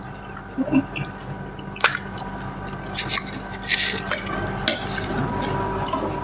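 Someone eating panipuri: crisp puris bitten and chewed, with scattered sharp clicks of dishes or cutlery, the loudest just under two seconds in, over a steady hum.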